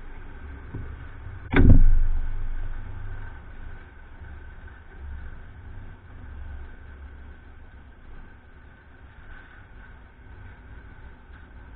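A car door of the Jowett Jupiter shut once with a loud thump about a second and a half in, over a low steady rumble.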